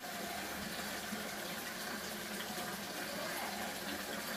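Water running steadily from a wall tap into a plastic basin as the basin fills.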